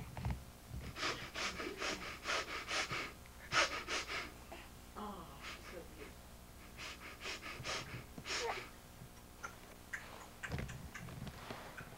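A baby's quick, breathy panting in short runs of several puffs a second, with a few soft vocal sounds between runs.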